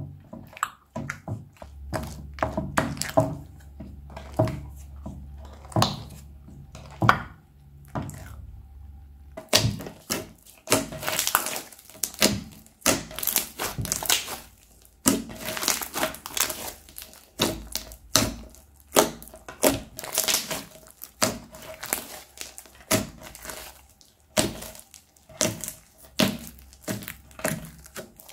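Crunchy slime packed with small beads, first stirred with a spatula in a bowl, giving scattered clicks and squelches, then kneaded and pressed by hand from about ten seconds in, with dense crackling and popping as the beads are squeezed.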